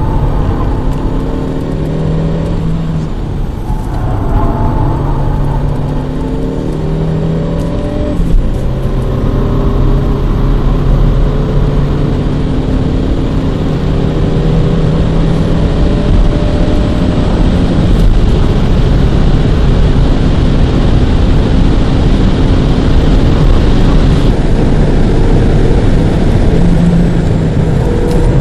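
Škoda Rapid 1.2 TSI's small turbocharged four-cylinder petrol engine pulling hard through the gears, heard inside the cabin. Its pitch climbs steadily and drops back at each gear change, several times, over steady road and tyre rumble.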